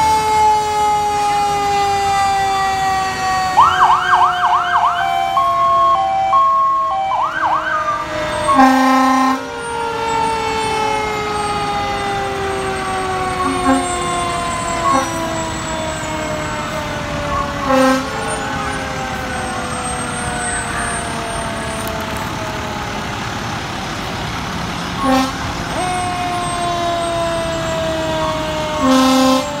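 Fire truck sirens wailing, the pitch sliding slowly down for several seconds and then starting high again, twice, with a quick warbling yelp about four seconds in. Short blasts of a truck's air horn sound several times over it.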